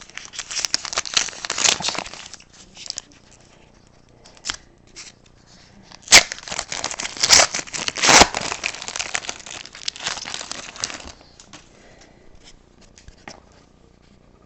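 A foil trading-card pack wrapper being crinkled and torn open by hand, in several loud crackling bursts, followed by lighter rustling as the cards are handled.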